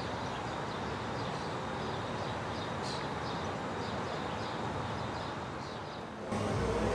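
Outdoor ambience: a steady hiss of background noise with small birds chirping repeatedly. About six seconds in, it switches abruptly to louder indoor hubbub.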